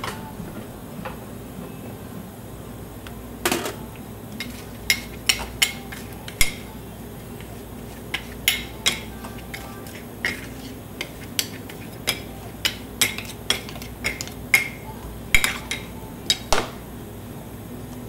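Metal spatulas clacking and scraping on a frozen cold-stone plate as ice cream is chopped and mixed: sharp, irregular knocks, about one or two a second, starting about three seconds in, over a low steady hum.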